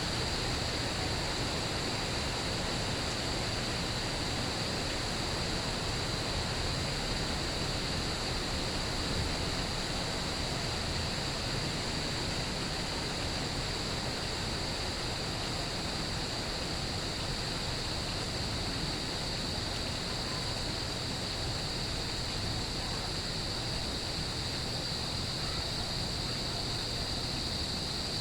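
Steady rain falling, with a constant high-pitched trill of crickets ringing above it.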